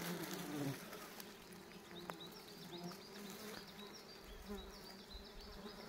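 A flying insect buzzing faintly, its drone wavering in pitch.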